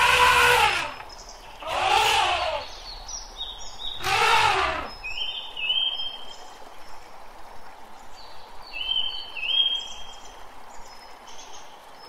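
Asian elephant giving three short trumpeting calls about two seconds apart, each rising then falling in pitch. Small birds chirp repeatedly afterwards.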